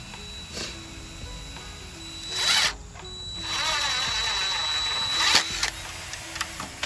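Power drill driving screws into the pavilion frame: a short burst, then a run of about two seconds, over background music.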